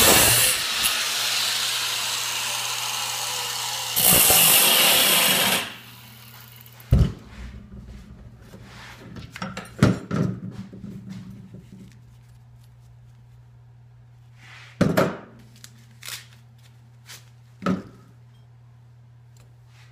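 Handheld angle grinder cutting through a steel knife blank, a loud steady grinding that stops about six seconds in. After that a low steady hum remains, broken by several sharp clunks as the metal blank and tools are handled and set down on the workbench.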